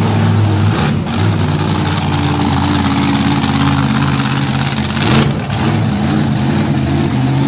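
Monster truck's engine running and revving as the truck manoeuvres, its pitch shifting a couple of times, with a brief loud burst about five seconds in.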